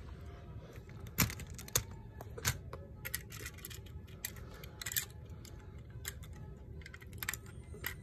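Light, irregular clicks and taps of small plastic parts: Lego bricks and minifigures being handled, with several sharp clicks in the first few seconds and a few more near the end.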